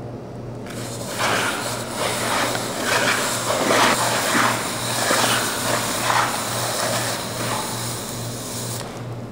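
Scraping and rubbing as two handheld pads are pushed and dragged across the floor: an uneven hiss that starts about a second in and stops near the end.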